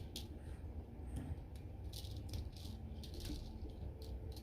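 Several light, sharp clicks and rattles, scattered unevenly: small hard pieces being handled and knocked together.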